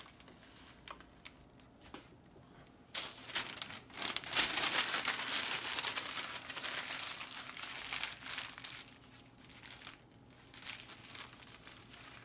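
Crinkling of a printed wrapper being crumpled and balled up in gloved hands, starting about three seconds in and loudest through the middle, with lighter rustles near the end.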